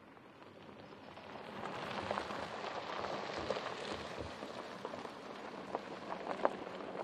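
Porsche Cayenne Turbo's tyres crunching and crackling over a loose gravel track, with small stones popping, swelling over the first two seconds.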